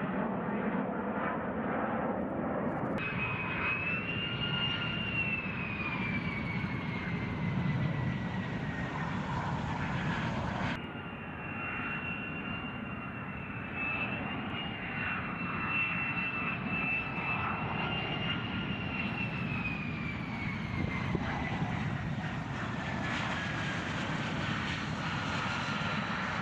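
F-35A Lightning II fighter jets' engines running as they fly in and come down to land: a steady jet roar with a high whine that slides slowly down in pitch. The sound changes abruptly about three seconds in and again about eleven seconds in, where the footage is cut.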